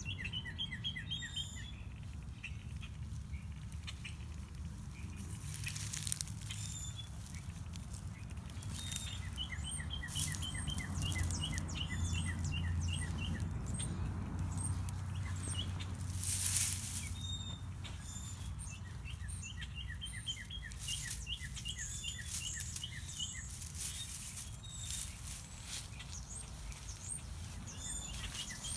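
Small birds singing in runs of quick, repeated chirping notes, again and again, with a steady low hum underneath. A few brief noisy bursts stand out, the loudest about two-thirds of the way in.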